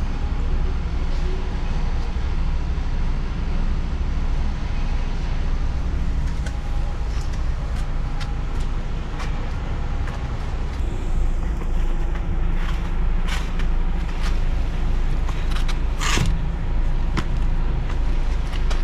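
DAF XF truck heard from inside the cab: a steady low engine drone with road noise, and a few short clicks and creaks from the cab, mostly in the second half.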